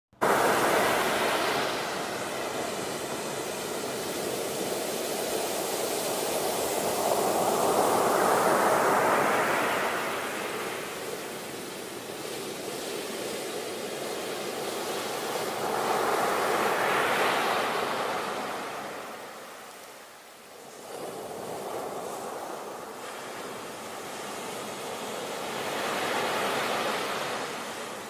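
Sea surf: big waves breaking and washing up the beach in foam, a steady rushing noise that swells and eases in slow surges, loudest near the start and about eight, seventeen and twenty-six seconds in, with a brief lull near twenty seconds.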